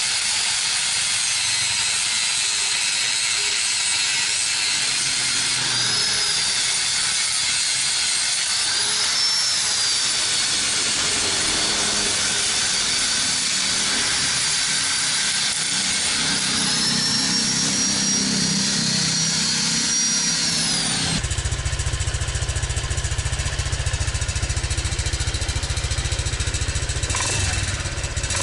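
Angle grinder grinding a welded motorcycle muffler smooth, its high whine dipping and rising as the disc bites into the metal. About two-thirds of the way through it gives way suddenly to a motor scooter's engine idling with a low, even rumble through the repaired exhaust.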